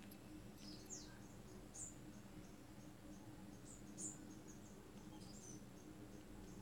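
Near silence: faint room hum with a scattering of short, faint high-pitched chirps that drop in pitch.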